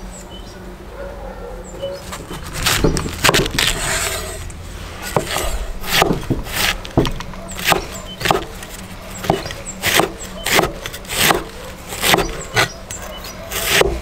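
Cleaver chopping through a red cabbage and striking a wooden cutting board: a run of crunchy chops, about one to two a second, starting a couple of seconds in.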